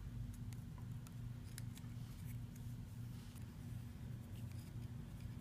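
Faint small clicks and rustles of cotton string being pulled and tied around cinnamon sticks and a star anise pod, over a steady low hum.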